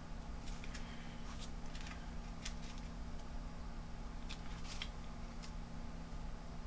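Faint handling noise from a plastic laptop battery pack being turned and worked in the hands: scattered small clicks and crackles from the plastic shell and its label, over a steady low hum.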